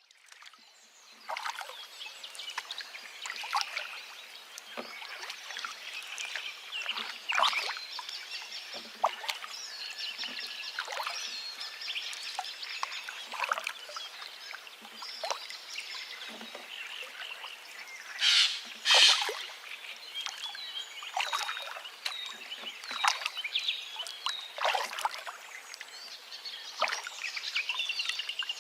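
A river babbling and splashing, with songbirds chirping over it. The sound fades in over the first second or so. Two loud, short bursts stand out a little past the middle, and a rapid bird trill comes near the end.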